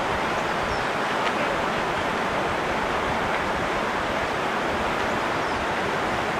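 Steady rush of flowing river water, an even wash of noise with no breaks.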